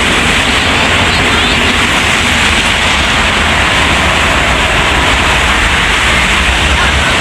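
Loud, steady roar of heavy road traffic passing close by, with engine rumble and tyre noise, and no horn sounding.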